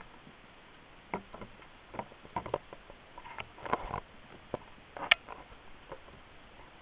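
Sparse, irregular clicks and taps heard underwater over a low background hiss, the sharpest about five seconds in.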